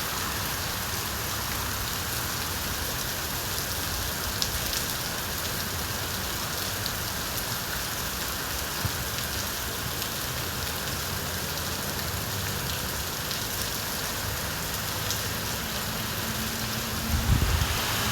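Steady rain falling on a surface, with an occasional sharper drop tick. A brief low rumble near the end.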